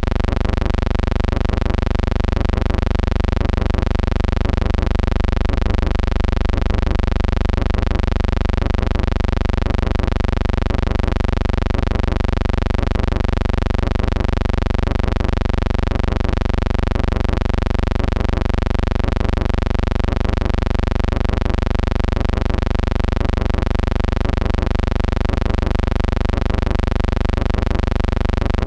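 A steady, unchanging hum-like buzz with many evenly spaced overtones, the same from start to finish, with no other sound over it.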